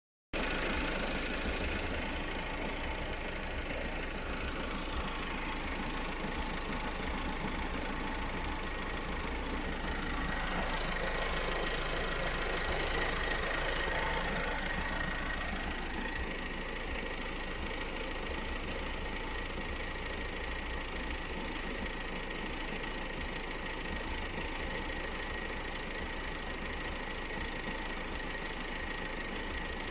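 Opel Astra J's 1.6 CDTI diesel engine (B16DTH) running with a strange noise, a sign that the engine is working abnormally. A steady high whine comes in about a third of the way through and stays, while the engine swells a little and then settles back about halfway.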